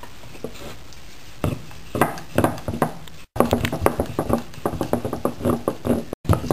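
Rolling pin rolling out roti dough on a rolling board: quick repeated knocks and clicks, several a second, starting a little over a second in.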